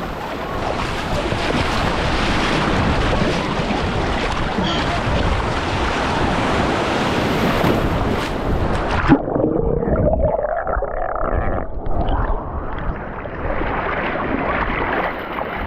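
Ocean surf and rushing water on a waterproof camera's microphone. About nine seconds in, the sound turns suddenly muffled as the camera goes underwater, then partly clears near the end.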